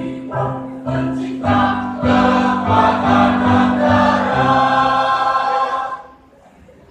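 Choir singing, closing on a long held chord that stops about six seconds in.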